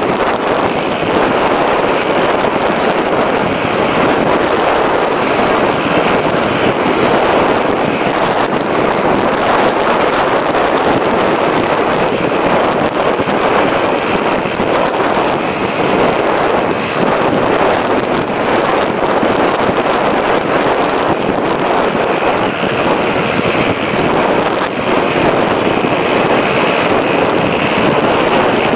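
Steady rush of wind and road noise at a camera mounted on the outside of a moving car, with no clear engine note or sudden events.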